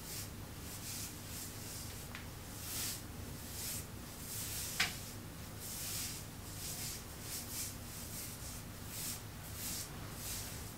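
Fingers working through wet, conditioned curly hair: soft, irregular rubbing swishes, with one sharp click a little before halfway.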